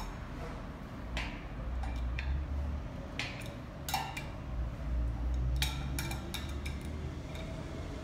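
Metal wrench clicking and clinking against a threaded galvanized hose fitting as it is turned tight, a handful of sharp separate clicks with a cluster of them past the middle, over a low rumble.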